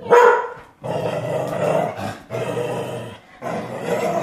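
Border collie giving one short, loud bark at the start, then growling in three long, rough grumbles of about a second each as it is brushed with a rubber curry comb.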